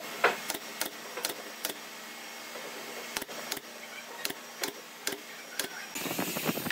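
Pneumatic brad nailer driving nails into pine boards: about a dozen sharp shots, several about a third of a second apart in the first two seconds, then more spaced out, over a steady low hum.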